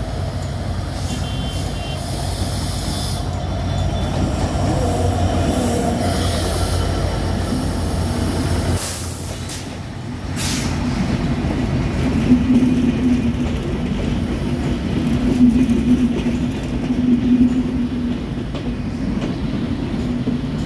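A diesel-electric locomotive hauling a passenger train into a station: the locomotive's engine rumbles past for the first nine seconds or so, then drops away. The coaches then roll by with a squeal from the wheels that rises and falls several times as the train slows.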